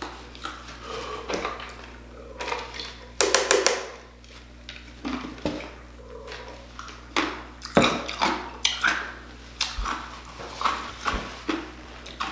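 A man sniffling, breathing hard and gulping water from a plastic cup in short, irregular bursts, his mouth burning from an extremely hot chili lollipop.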